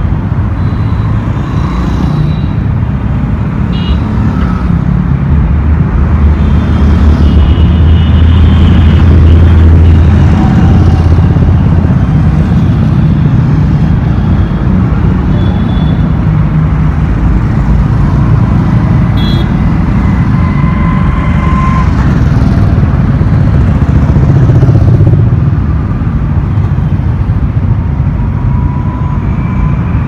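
Heavy road traffic of cars, motorcycles and auto-rickshaws passing close by, a steady rumble of engines and tyres. It swells louder for a few seconds from about six seconds in as vehicles pass near, and a few short high tones sound over it now and then.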